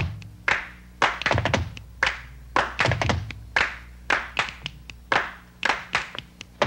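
Percussion music for a folk dance: a fast, uneven run of sharp drum strikes over a few deep low drum strokes.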